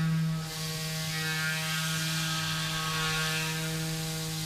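Tormach 440 CNC mill's spindle running with a steady hum while an end mill cuts an aluminium block, with a hiss from the cut that eases off briefly about half a second in and then returns.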